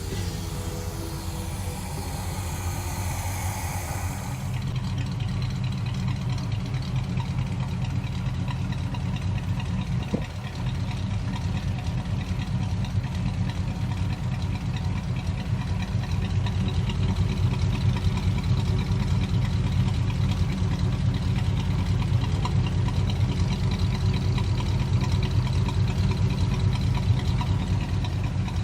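The 400 V8 of a 1976 Pontiac Firebird Formula idling steadily. The even low exhaust pulse gets slightly louder in the second half.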